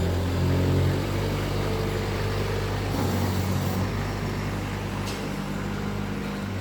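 Diesel engine running steadily after a glow-plug start. Its note drops and gets a little quieter about a second in.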